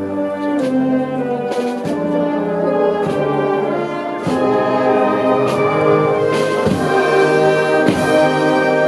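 Brass band playing a slow Holy Week processional march: sustained brass chords that move in steps, over percussion strikes about once a second.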